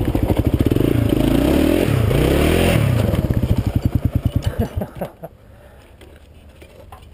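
Kawasaki KLR650's single-cylinder engine revving up and down as the bike goes down in a crash. Its firing then slows to separate beats, and it stalls about five seconds in; a few short knocks follow.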